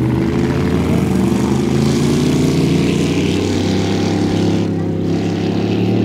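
An engine running at a steady idle close by, its pitch holding level throughout.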